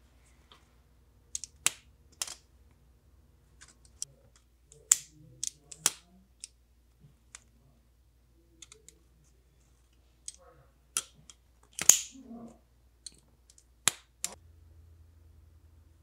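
Civivi Vision FG folding knife being flipped open and closed by hand: a scattered series of sharp clicks and snaps as the blade swings out and locks, and is released and shut, with soft handling sounds between.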